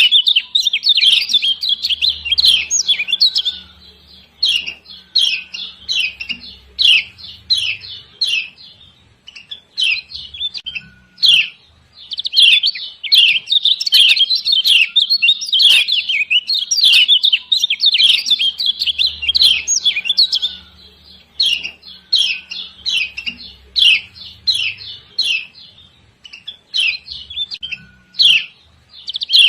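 Yellow white-eye (kecial kuning) giving rapid, scratchy 'ciak ciak' chirps in dense runs of a few seconds, broken by short pauses. It is a female's call of the kind used as a lure to get lazy captive males singing.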